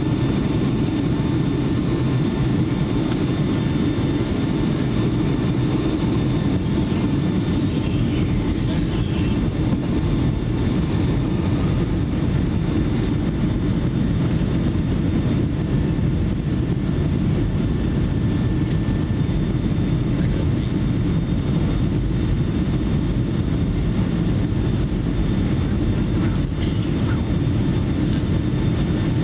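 Steady roar inside an airliner's cabin during the descent to land: engine and airflow noise heaviest in the low end, with faint steady whining tones above it.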